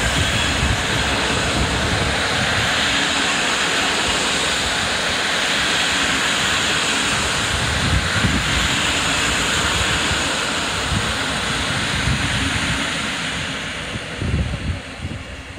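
Intercity passenger coaches passing close by at speed: a loud, steady rush of wheels rolling on rail and displaced air, with low irregular knocks from the running gear. It fades as the last coach goes by near the end.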